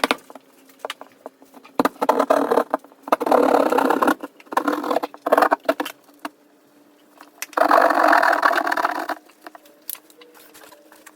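Several bursts of rasping, rattling noise from tearing open a wall to find a water leak, each about a second long, with scattered clicks and knocks between them.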